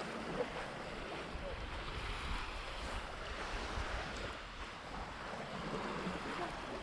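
Sea waves washing onto the beach in a steady wash, with wind buffeting the microphone in a low rumble.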